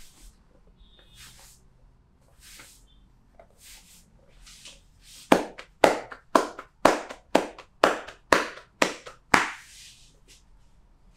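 Back massage percussion: the masseuse's hands strike the back nine times in an even rhythm, about two sharp slaps a second. Faint rubbing swishes of hands on skin come before the slaps.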